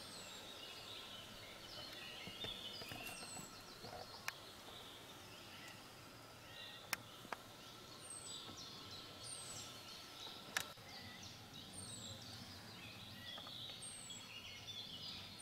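Small forest birds singing and calling: assorted chirps and trills, with a high, thin, falling note repeated every second or two. A few sharp clicks stand out over it, two of them in quick succession about seven seconds in.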